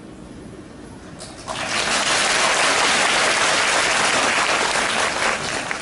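Audience applauding: the clapping starts about a second and a half in, holds steady, and dies away near the end.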